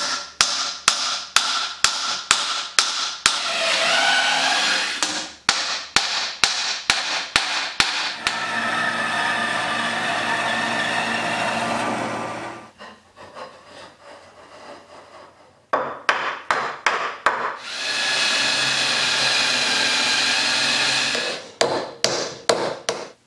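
A hammer striking wooden pegs into drilled holes in a timber beam, two to three blows a second. The blows give way to a bandsaw running as it cuts a wooden block for about four seconds. After a pause with light knocks come another short run of strikes, a second stretch of steady machine noise, and a few more strikes near the end.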